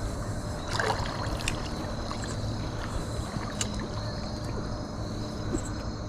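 Steady rush of river water with a low hum under it and a faint steady high tone, broken by a few small clicks and knocks.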